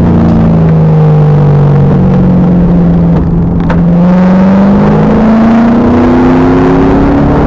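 The 2000 Pontiac Trans Am Firehawk's LS1 V8 under load, loud and heard from the back of the car. Its pitch falls as the car comes off the throttle, there is a short dip about three seconds in, and then the pitch climbs steadily as it accelerates again.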